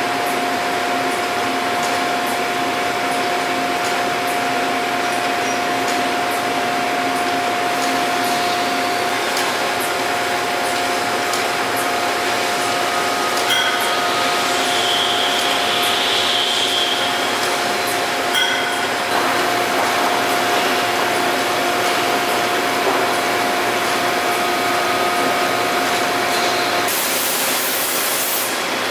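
Stelron CWB conveyor walking beam assembly machine running: a steady mechanical hum with a constant whine and scattered light clicks. The whine stops about two seconds before the end, and a hiss like escaping air takes over.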